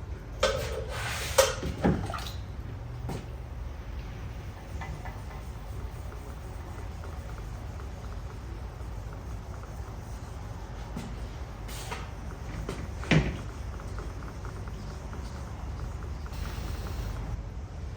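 A steady low hum, with a few sharp clunks and knocks in the first two seconds and another about 13 seconds in, like parts and tools being set down and handled on a bench.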